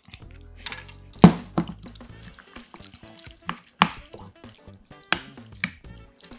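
Metal ladle and spoon clinking against ceramic bowls while stew is ladled over rice and stirred in. There are a handful of sharp clinks, the loudest just over a second in, with soft wet sounds of the stew between them.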